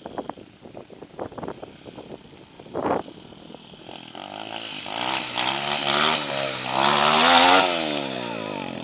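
Orion 140cc pit bike's single-cylinder engine revving up, rising in pitch and loudness to a peak and then falling away, after a few scattered clicks and knocks.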